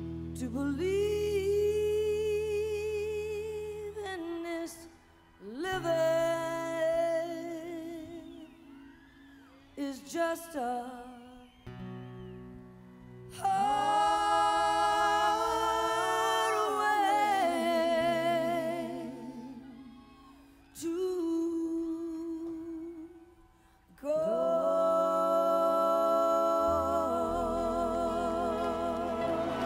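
Female vocals singing slow, drawn-out phrases with long held notes that waver in vibrato, partly hummed or wordless, over a soft band accompaniment with bass and acoustic guitar. Near the end a hiss-like wash joins the music.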